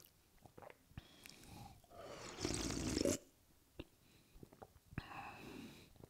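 A person loudly slurping a drink through the lips. There are small wet lip clicks, then one long loud slurp about two seconds in lasting about a second, then more smacks and a shorter, softer slurp near the end.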